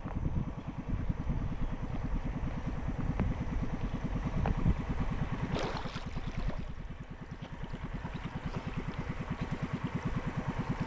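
Small fishing boat's engine running steadily at low revs, with an even, rapid pulse. A couple of sharp knocks come around the middle.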